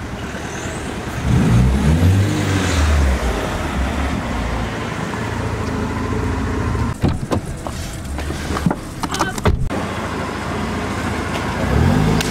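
A car's engine running as it drives slowly past close by, its pitch rising and falling about a second in and again near the end, over a steady low engine hum. Several sharp knocks or clicks sound between about seven and nine and a half seconds in.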